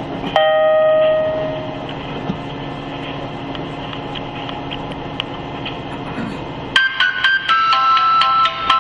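Inside a KiHa 183 diesel express railcar: a single chime tone sounds just after the start and fades over about a second and a half, over steady running noise. About seven seconds in, a chime-like melody begins playing over the train's PA.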